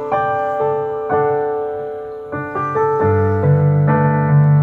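Yamaha digital keyboard playing in its piano voice: a melody of single notes, each starting sharply and then fading. About three seconds in, low bass notes come in underneath and the playing gets louder.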